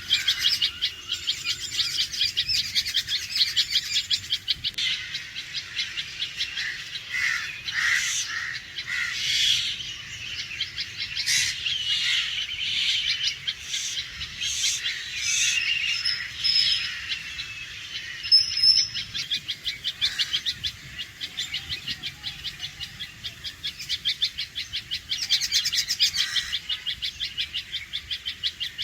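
Red-vented bulbul alarm calling: a rapid run of sharp, evenly repeated high notes, with a denser stretch of more varied calls and short pitch glides in the middle.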